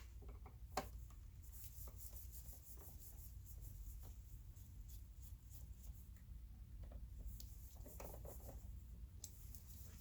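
Faint scattered clicks and rubbing from hands handling the computer's case, with one sharper click about a second in, over a steady low hum.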